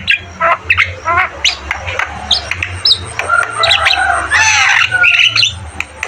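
Javan myna (jalak kebo) calling in a quick, varied run of harsh squawks, chattering notes and short sliding whistles, over a steady low hum.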